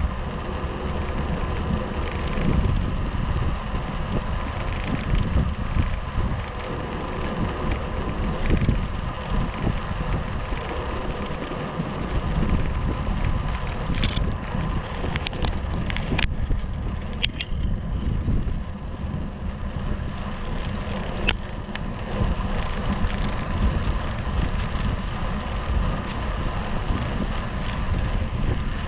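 Wind buffeting the microphone and bicycle tyres rolling on a tarmac road while riding, with a handful of sharp clicks or rattles about halfway through.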